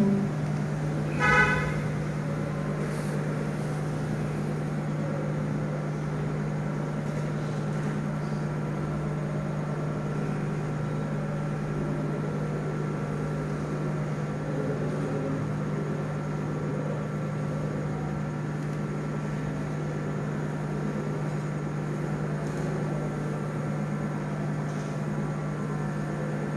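A man's short chanted phrase about a second in, the imam's 'Allahu akbar' for the change of posture. After that a steady low electrical-sounding hum over the hush of silent prayer.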